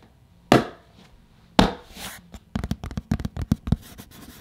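Two sharp knocks about a second apart, then a quick run of lighter taps and clicks.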